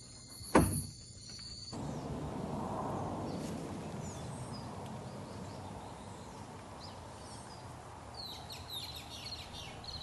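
Outdoor daytime ambience: an even low rushing hiss with small birds chirping, short high chirps scattered through it and coming more often near the end. For the first two seconds or so there is instead a steady high-pitched night chorus with a single sharp knock, before it cuts away.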